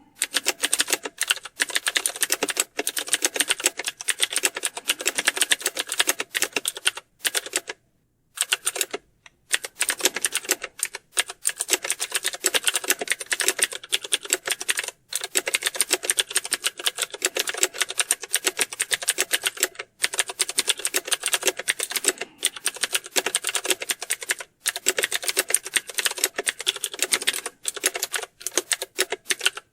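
Computer keyboard typing fast and without let-up, a dense clatter of keystrokes, with brief pauses around eight and nine seconds in.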